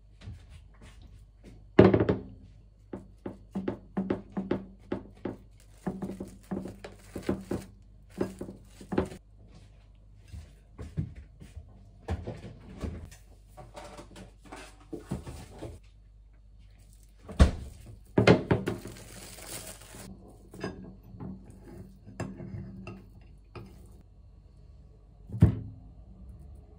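Irregular knocks, clicks and clatters of kitchenware being handled on a counter and shelf, with a few loud thunks: about two seconds in, twice around seventeen to eighteen seconds, and near the end.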